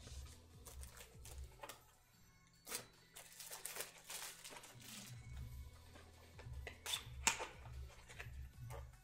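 Soft background music with a pulsing bass line under the rustle and clicks of trading cards and plastic card sleeves being handled, with a stretch of rustling midway and two sharp clicks near the end.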